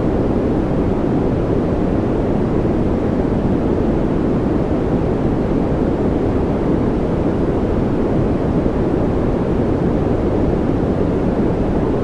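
Continuous white-noise track: an even, unchanging hiss with no events, weighted toward the low end so it sounds deep and rushing.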